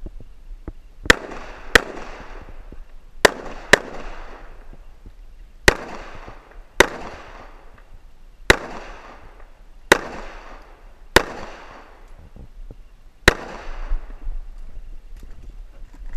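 CZ SP-01 Shadow 9mm pistol firing about ten shots, some as quick pairs about half a second apart and others one to two seconds apart. Each shot is a sharp crack followed by a short echo.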